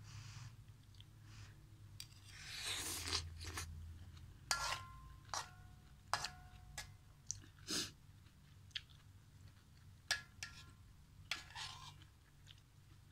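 A metal spoon clinking and scraping in an aluminium wok as noodles and broth are scooped, with several sharp clinks, a few ringing briefly, and a slurp with chewing about two to four seconds in.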